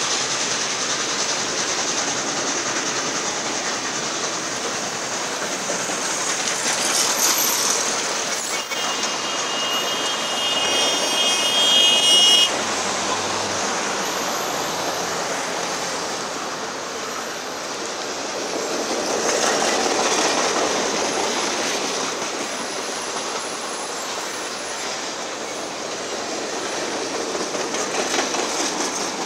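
Passenger cars of a steam excursion train rolling past close by, a steady rumble and rush of wheels on rail. A high, steady squeal sounds for about three seconds starting around nine seconds in.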